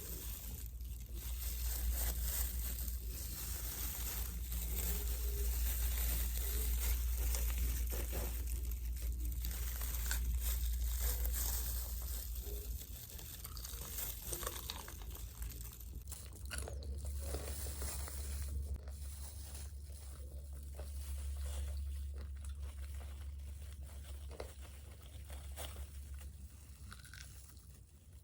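Someone biting and chewing crispy fried food: repeated crunches and chewing, with a steady low hum underneath.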